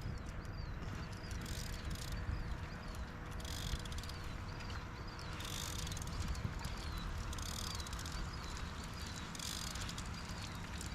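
A fishing reel being cranked steadily to bring in a hooked fish, with a run of small high squeaks about twice a second and a faint steady hum under a low rumble.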